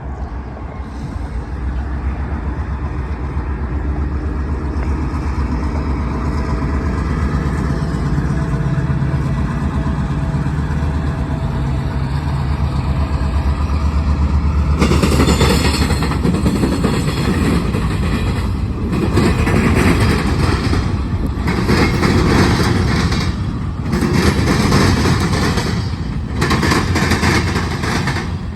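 EMD GP38-3 diesel-electric locomotive's two-stroke diesel engine drawing near with a steady low drone that grows louder, then from about halfway the rumble and rattle of freight cars rolling past on the rails, swelling and dipping every couple of seconds as each car goes by.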